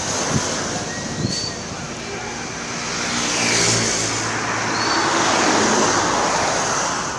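Road traffic: a motor vehicle passing close by, its engine and tyre noise swelling to a peak around the middle and fading near the end.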